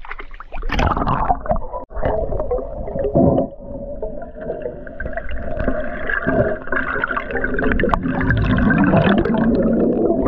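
Water splashing under a second in, then continuous muffled gurgling and rushing water heard from underwater.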